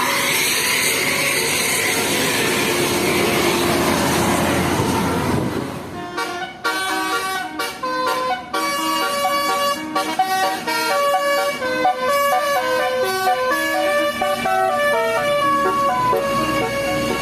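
A bus's telolet basuri multi-trumpet air horn playing a melody of short stepped notes in several pitches at once, starting about six seconds in. Before it comes a loud, noisy rushing wash with faint wavering tones.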